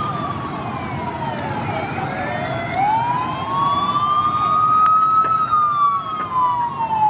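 Ambulance siren wailing in a slow fall, rise and fall again, over the noise of street traffic.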